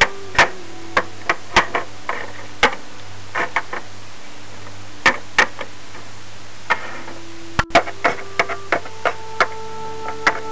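Scattered light clicks and taps from handling plastic toy figures and a handheld camera, irregular rather than in a rhythm, over a steady low hum.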